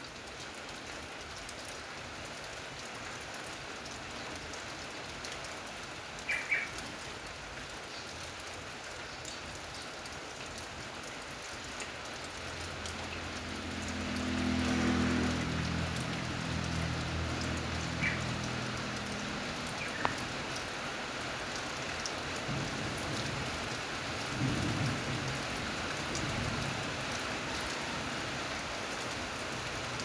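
Steady rain falling on corrugated metal roofs, with a low rumble that swells and fades about halfway through. A few short high chirps sound over the rain.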